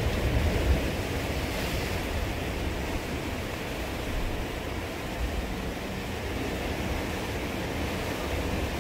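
Sea surf washing and breaking against the rocks below a cliff, a steady rushing, with wind rumbling on the microphone.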